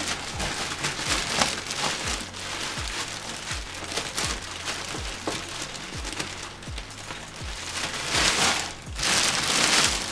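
Plastic packaging crinkling and rustling as a golf cart bag is unwrapped and handled. The rustling swells louder near the end. Faint background music with a steady beat runs underneath.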